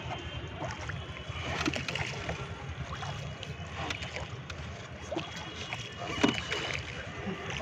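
Rowboat being rowed: oar strokes splash and knock about every two seconds over a steady low rumble.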